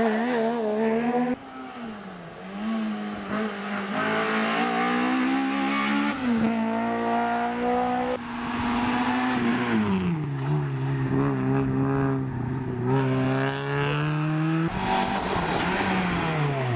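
Race car engines under hard acceleration, the pitch climbing and dropping with gear changes and lifts off the throttle, with some tyre squeal. The sound jumps abruptly several times, about a second in, near six and eight seconds, and near the end, as it switches from one car to another.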